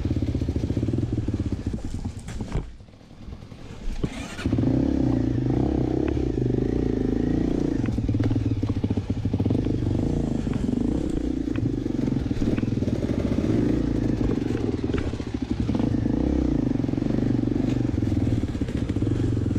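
Enduro dirt bike engine running and revving as the bike crawls over rocks, with scattered sharp knocks. About two and a half seconds in the engine sound falls away for under two seconds, then comes back strongly.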